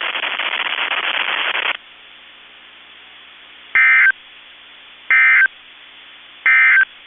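A loud hiss of radio noise that cuts off after under two seconds, then three short bursts of Emergency Alert System end-of-message data tones (the EOM), evenly spaced about a second apart over a faint steady hiss, signalling the end of the alert test.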